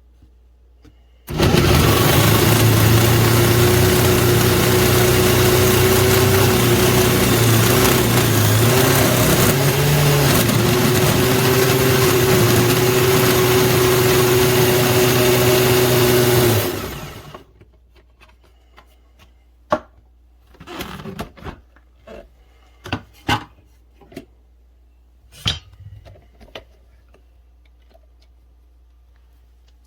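Oster Pro Series blender motor running at a steady high speed for about fifteen seconds, then winding down. A few knocks and clicks follow, like the jar or lid being handled.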